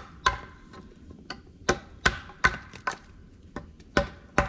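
Hatchet striking a wooden pole in a series of sharp, ringing knocks. One blow comes at the start, then after a pause a run of strokes follows at about two to three a second.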